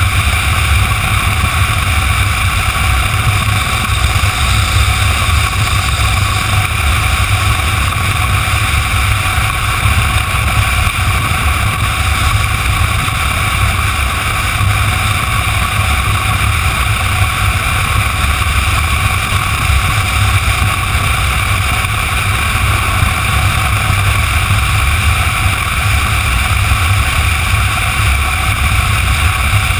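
Motorcycle cruising at steady road speed, heard from the rider's position: a constant, loud rush of wind and engine noise with a heavy low rumble, unchanging throughout.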